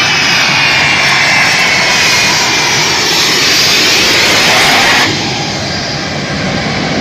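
Jet engines of a large military transport aircraft running close by: a loud steady roar with a high whine that falls slightly in pitch. The whine drops away abruptly about five seconds in.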